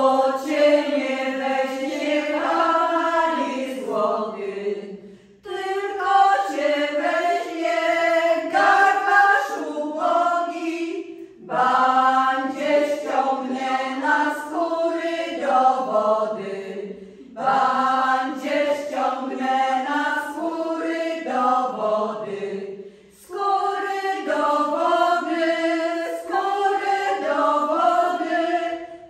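A women's vocal group singing a traditional Polish folk song unaccompanied, several voices together, in phrases of about six seconds with short breaks for breath between them.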